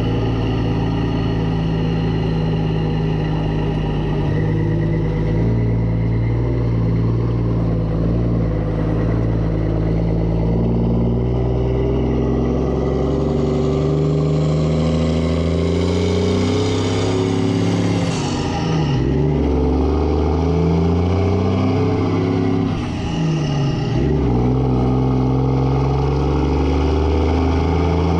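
Mack semi truck's diesel engine pulling the truck along the road, heard from just behind the cab. The engine's pitch climbs, then drops sharply twice, about two-thirds of the way through and again a few seconds later, as it shifts up through the gears.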